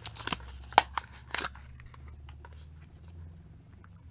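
Small cardboard cosmetics box being opened and handled by hand: a few sharp clicks and scrapes of card in the first second and a half, then fainter ticks as the eyeshadow compact is slid out.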